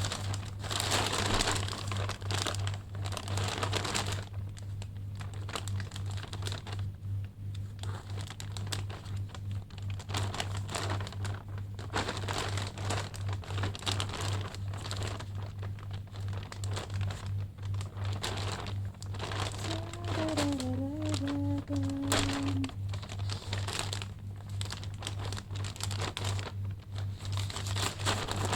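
Plastic parcel packaging crinkling irregularly as it is handled and opened by hand, over a low steady hum.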